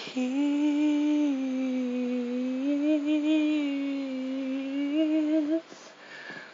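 A singer's voice holding one long vocal note with almost no accompaniment, sinking slightly in pitch and lifting again before it stops about five and a half seconds in. Faint ticks follow.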